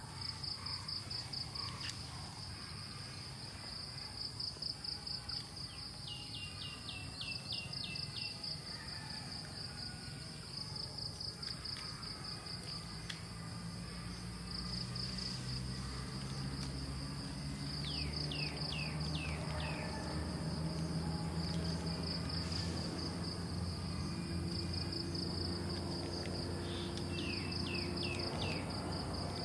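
A steady, fast-pulsing insect trill, with a bird giving a quick series of about five falling notes three times. A low hum comes in from about the middle.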